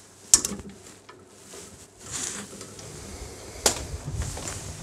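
Two sharp clicks about three seconds apart, with rustling and scraping between them, as the old ABS wheel-speed sensor wiring and its clip are worked loose and pulled out at the top of the front suspension.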